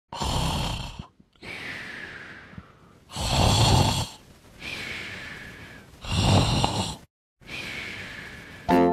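A person snoring: three loud snores about three seconds apart, each followed by a quieter breath out. Light music begins at the very end.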